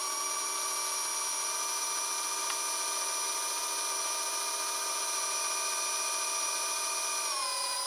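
Capo Cub 1/18 scale RC crawler's electric motor and all-metal two-speed transmission spinning the drivetrain under throttle with the wheels off the ground: a steady whine that dips slightly in pitch near the end.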